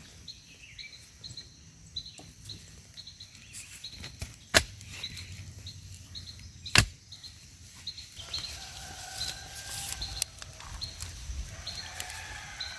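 Outdoor garden ambience: a short, high chirp repeats about twice a second. Two sharp knocks come about two seconds apart near the middle.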